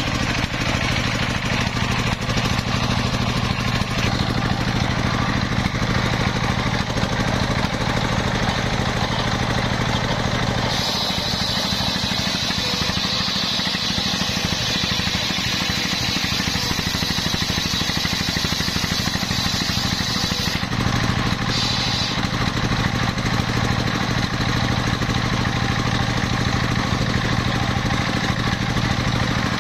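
Engine-driven circular sawmill blade ripping a coconut palm log lengthwise, over the steady pulsing run of its engine. For about ten seconds in the middle the cut gives a brighter, higher whine.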